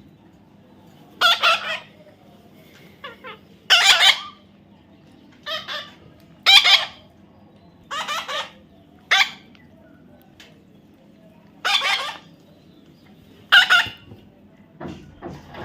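Baby parrot giving a series of short, harsh squawking calls, one every one to two seconds, about nine in all.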